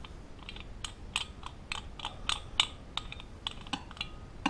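Small brass parts of a displacement oiler clicking and clinking as they are handled and fitted together by hand: a run of light, irregular clicks, some with a brief metallic ring.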